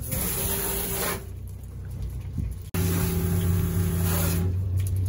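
Boat engine running with a steady low hum. Twice a louder hiss with a steady droning tone sets in and stops, the second time starting suddenly.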